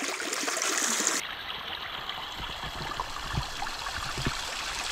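Water trickling and dripping off a rock ledge into a flowing river, with small irregular splashes. About a second in, the sound changes abruptly from the wider river's steady flow to the trickle.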